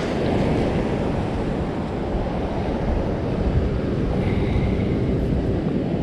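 Surf washing onto a beach, with wind buffeting the microphone as a steady low rumble.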